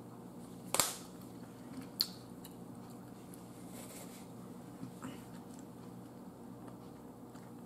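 Quiet room tone broken by a sharp click about a second in and another about two seconds in, then a few fainter clicks later.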